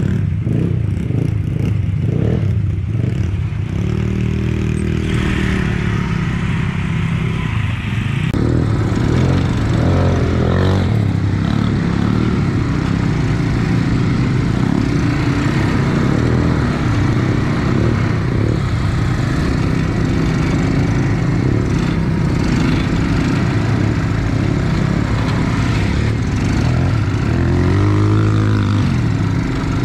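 ATV (quad bike) engine running close by, heard from its own handlebars, its pitch rising and falling several times as the throttle is worked along a bumpy dirt trail.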